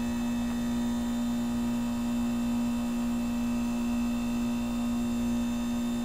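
Outdoor unit of a 1988 Heil heat pump in its defrost cycle, its compressor running with a steady, unchanging hum.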